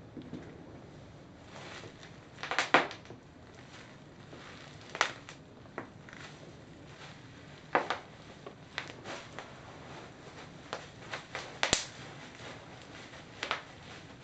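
Bubble wrap being trampled by someone in Birkenstock sandals: plastic crinkling with about ten sharp pops at irregular intervals, the loudest about two-thirds of the way through.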